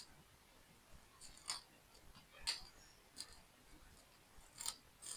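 Faint, sharp plastic clicks and taps, about five of them at irregular intervals, from small toy building-block parts being handled and fitted together.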